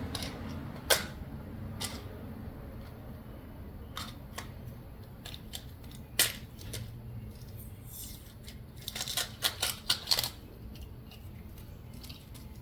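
Scattered light clicks and taps of small hand tools from a tire plug repair kit being handled, with a quick run of louder clicks about nine to ten seconds in.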